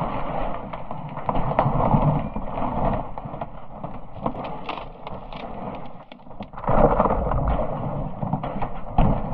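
Iceberg collapsing: a rumbling roar shot through with crackles and snaps, dipping briefly and then swelling louder about seven seconds in.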